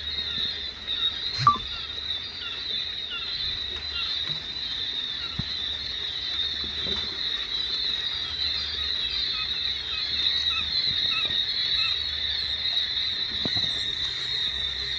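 A flock of 23-day-old quail peeping continuously, many small high-pitched calls overlapping, with one sharp click about a second and a half in.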